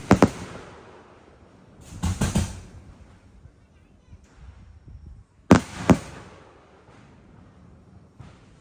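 Aerial firework shells bursting: sharp bangs in quick succession at the start, another group about two seconds in, and a pair of loud bangs about five and a half seconds in, each trailing off in a fading rumble.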